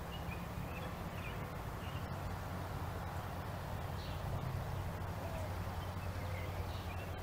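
Outdoor ambience: short, scattered bird chirps, faint, over a steady low hum.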